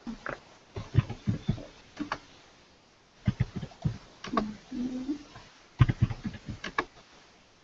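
Typing on a computer keyboard: three short runs of irregular key clicks with brief pauses between them.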